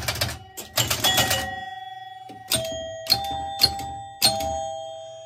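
1970 Gottlieb Batter Up electromechanical pinball machine scoring: two quick runs of chime strikes over a low mechanical clatter, then four single chime strikes a little over half a second apart, each left ringing.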